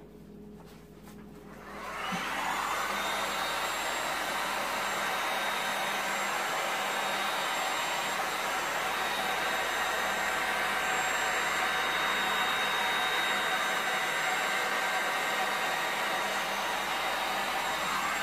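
A handheld hot-air blower blowing across wet epoxy resin: it is switched on about two seconds in, spins up, and runs steadily with an airy rush and a thin high whine, then winds down at the very end.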